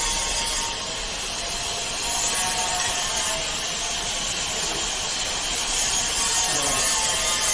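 Steady hiss of a running machine: the double J hook machine's hydraulic power station and oil-cooling fans, with a faint hum under it.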